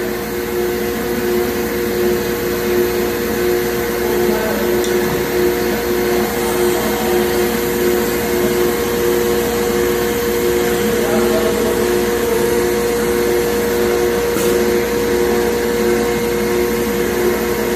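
CNC router running while machining shaker cabinet doors: a steady machine noise with a constant hum and a tone that pulses on and off about twice a second.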